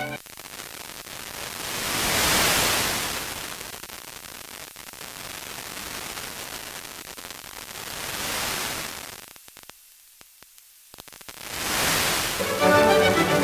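FM radio receiver hiss as a distant station's signal fades out during sporadic-E propagation: static that swells and fades in waves, drops to near silence with a few clicks about ten seconds in, then rises again as the station's classical music fades back in near the end.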